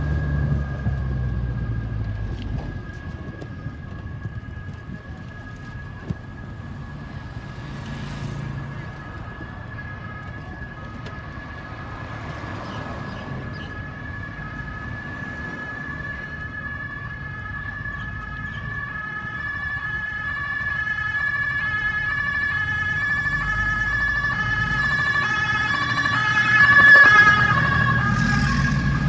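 Ambulance siren drawing closer and passing, a steady high tone together with a tone alternating between two pitches. It grows slowly louder, peaks near the end and then falls away, with the vehicle's rumble as it goes by.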